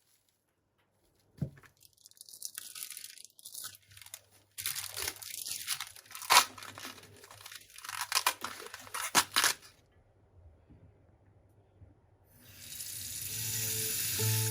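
Crinkling and tearing in several bunched bursts, as of packaging being torn and handled. About twelve seconds in a steady frying sizzle starts up, and music comes in near the end.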